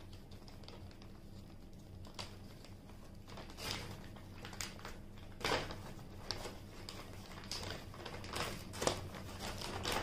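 Brown paper takeaway bag rustling and crinkling in short irregular bouts as hands rummage inside it and lift it, over a faint steady low hum.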